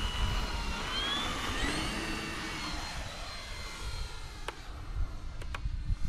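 Electric motor and propeller of an E-flite Turbo Timber RC plane whining in flight, rising in pitch over the first two seconds and then fading, over a low wind rumble on the microphone. A few sharp clicks near the end.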